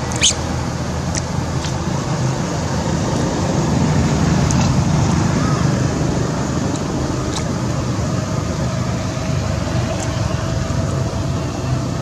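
Steady outdoor background rumble, like distant road traffic, with a few brief sharp clicks scattered through it.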